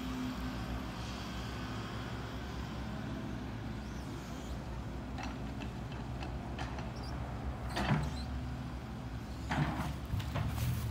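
Diesel engine of a truck or excavator running steadily at low revs, with a couple of short clunks about eight seconds in and again near the end.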